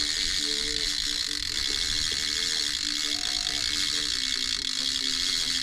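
Conventional shark reel in free spool with its clicker on, ratcheting steadily in a fast buzz as line pays out: a shark is swimming off with the bait before the hook is set.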